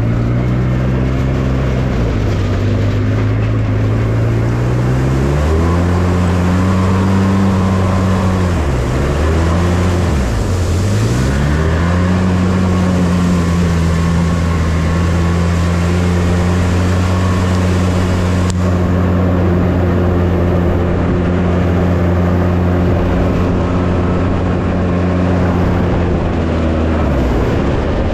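Polaris RZR S 800's twin-cylinder engine running hard while the side-by-side is driven, heard from the cab. The revs climb about five seconds in, drop away and pick up again twice, then hold steady and high until they ease off near the end.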